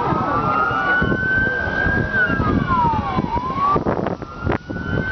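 A siren wailing, its pitch sliding slowly up and then down and up again, over a background of crowd noise, with a few sharp knocks near the end.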